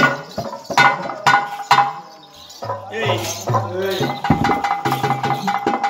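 Live stage-drama music: a handful of sharp, ringing metallic strikes in the first two seconds, then a man's voice singing or declaiming over a steady held note.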